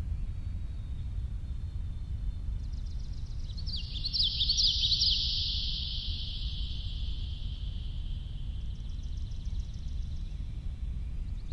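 Dark ambient drone piece: a steady low rumble runs underneath. A high, rapid chirping texture swells in a few seconds in, peaks, and fades away, then a fainter train of high chirps returns near the end.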